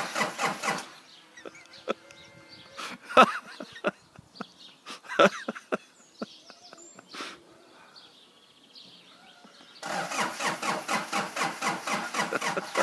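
A truck's starter motor cranking the engine in an even, rapid rhythm without it catching: the engine will not start. The cranking stops after about a second, leaving a few scattered clicks and knocks, and starts again for the last few seconds.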